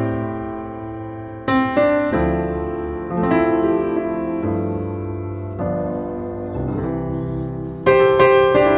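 Background piano music: chords struck every second or so, each ringing and fading, with a louder chord near the end.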